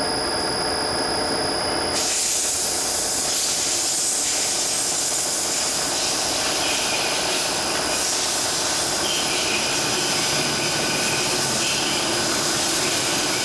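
Multi-spindle drilling machine running, several drills cutting at once under flood coolant: a steady hiss with constant machine whine. The hiss grows brighter about two seconds in.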